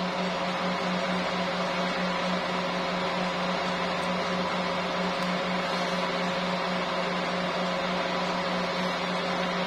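Steady mechanical hum with a constant low tone and a fainter higher tone over an even whirring haze, unchanging throughout.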